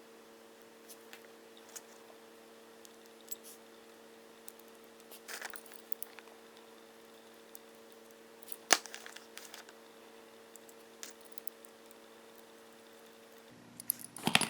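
Faint, scattered clicks and light taps from small parts being handled on a workbench, with one sharper tap about three-quarters through and a few more near the end. A steady low electrical hum runs underneath and shifts lower near the end.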